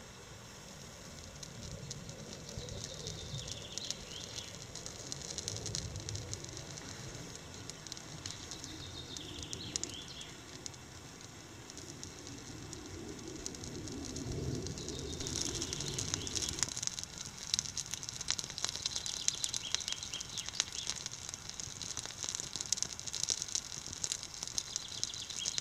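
Birch bark burning with light, scattered crackling. About 15 seconds in, the crackling of a small split-wood kindling fire becomes denser and a little louder.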